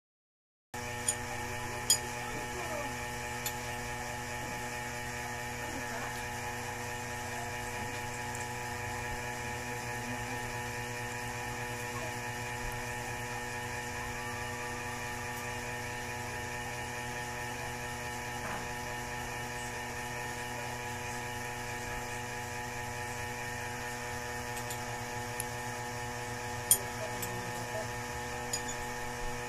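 Steady electrical hum made of several fixed tones, with a few brief sharp clicks near the start and another close to the end.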